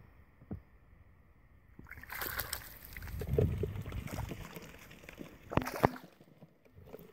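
Splashing and sloshing in shallow, muddy rice-paddy water, starting about two seconds in, with a short sharp sound near the end.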